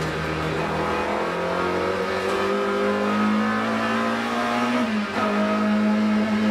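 BMW M3 Group A race car's 2.5-litre four-cylinder engine heard from inside the cabin, accelerating with its pitch climbing steadily, then a quick upshift about five seconds in before it pulls again.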